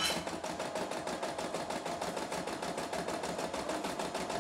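CNY E960 computerized embroidery machine stitching, its needle running in a steady, even rhythm of rapid stitches.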